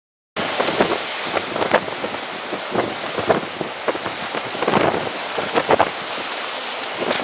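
Strong gusty wind outdoors: a loud rushing hiss with many short, sharp peaks, cutting in suddenly just after the start.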